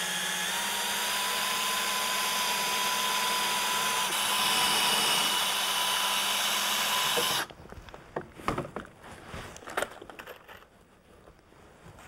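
Cordless drill running steadily for about seven seconds, drilling into a knot in the end of a wooden board, then stopping suddenly. After it come a few light clicks and knocks of tool handling.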